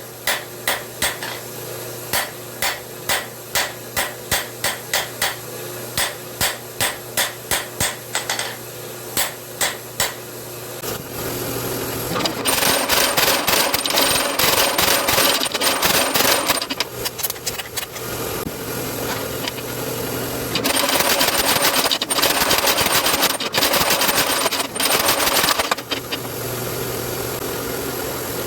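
Light ball peen hammer striking a hot railroad spike on an anvil, about two blows a second for the first ten seconds. Then a power hammer runs in rapid continuous blows, in two long spells with a quieter lull between.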